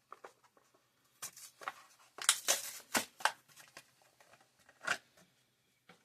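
A die-cast car's blister package being torn and crinkled open, plastic and card: a run of short crackles and rips, loudest and thickest about two to three seconds in, with one more near the end.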